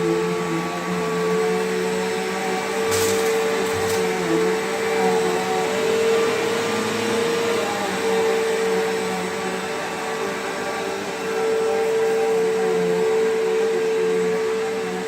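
Bissell PowerGlide Platinum (3545-2) bagged upright vacuum running steadily with a constant motor whine, with two brief clicks about three and four seconds in.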